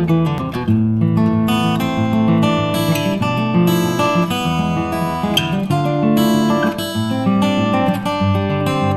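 Background music with steady chords that change every second or so.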